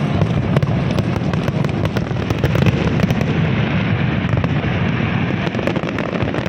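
Aerial fireworks display going off in a continuous barrage of overlapping bangs and crackles.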